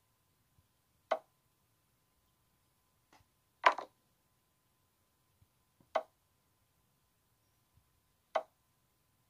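Chess app piece-move sound effects: four short wooden clicks about two and a half seconds apart, one for each move played. The second click is louder and longer: the capture sound, as a bishop takes a pawn.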